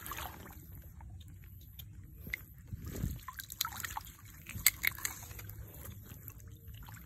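Shallow muddy water sloshing and trickling, with small splashes as a stick is moved through it among twigs and floating weed. Scattered light clicks run through it, with a slightly louder slosh about three seconds in.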